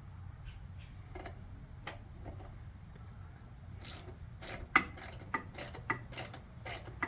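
Hand ratchet with an Allen socket clicking as a crash bar bolt is snugged down: a few faint ticks, then from about four seconds in a run of sharp clicks, about three a second, with each back-stroke of the handle.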